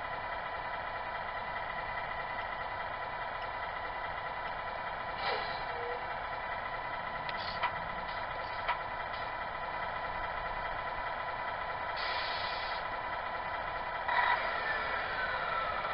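RC truck's electronic sound unit playing a diesel engine idling steadily through a small speaker, with a short air-brake hiss about twelve seconds in. Near the end a falling tone follows a brief burst.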